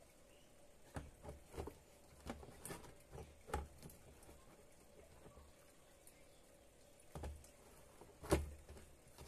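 Glass top panel of an induction cooker being fitted back onto its plastic base: a run of light knocks and clicks, then a single sharper knock near the end.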